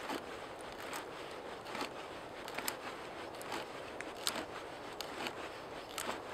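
Hand auger with a wooden T-handle boring into a log: the bit scrapes steadily through the wood as the handle is turned, with irregular sharp clicks and creaks. The loudest click comes about four seconds in.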